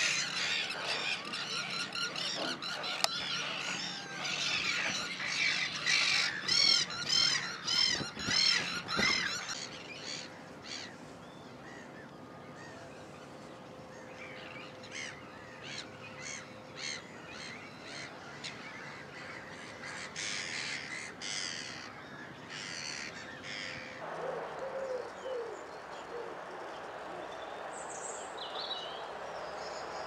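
Wild birds calling: a dense run of loud, harsh, repeated calls for the first ten seconds or so, then sparser short chirps and calls.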